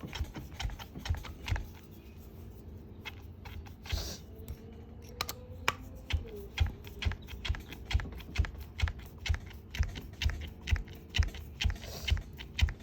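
Light clicks and taps from hands and a hex driver working on the RC truck's motor and gear cover, sparse at first and then a steady run of about two to three clicks a second from about halfway through.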